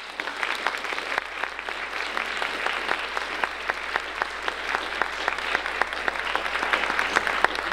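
Audience applauding: dense, steady clapping with single sharp claps standing out.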